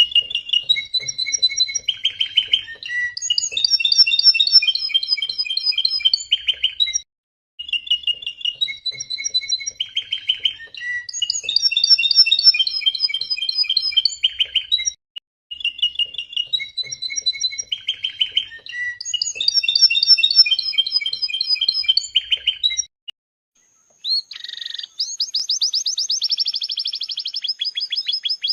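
Canary singing: the same song phrase of chirps and trills three times over, each about seven seconds long with a short pause between. From about three-quarters of the way in, a different passage of rapid downward-sweeping notes over a steady high whistle.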